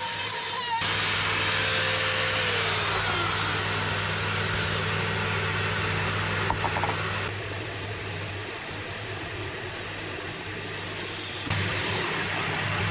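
An electric motor running steadily with a low hum and a hiss, a whine falling away about three seconds in. The noise eases off for a few seconds midway and picks up again near the end.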